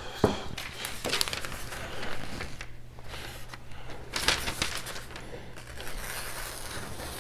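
Light scratchy swishes and clicks from a Shigefusa Swedish carbon-steel kitchen knife's edge at work, just after stropping. There is a sharp click about a quarter second in and a scratchier stretch around four seconds in.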